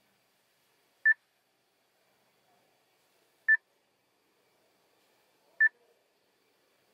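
Three short electronic beeps from the Chery Tiggo 8's climate control panel, about two seconds apart, each confirming a press that changes the air-distribution mode.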